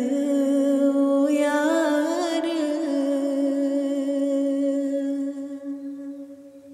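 A singer's voice holds one long sung note in a devotional Sufi kalaam. The note wavers in an ornament early on, then is held steady and fades out near the end.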